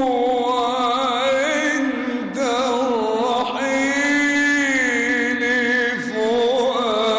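A man's solo voice singing an Islamic ibtihal, drawing out long ornamented notes with a heavy vibrato, with short breaks about two and six seconds in.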